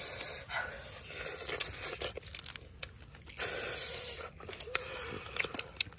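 Crispy fried chicken feet being bitten, torn apart and chewed: close, uneven crunching and crackling with a few sharp cracks.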